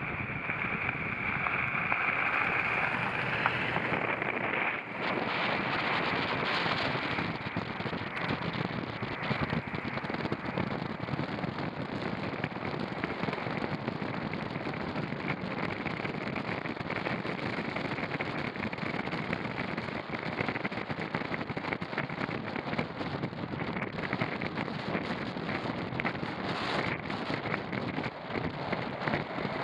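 Off-road vehicle driving over rough ground: a steady rush of noise with dense crackling throughout.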